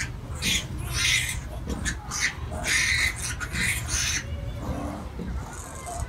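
Newborn piglets squealing: a rapid run of short, shrill screams as they fight over teats while nursing, stopping about four seconds in.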